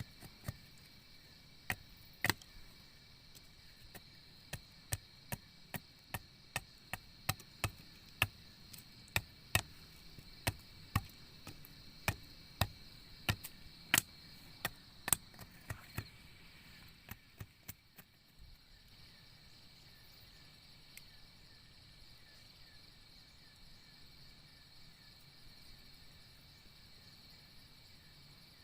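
Wood being chopped with a blade: a run of sharp strikes, about one and a half a second, that stops about two-thirds of the way through. A steady chorus of insects, such as crickets, runs underneath throughout.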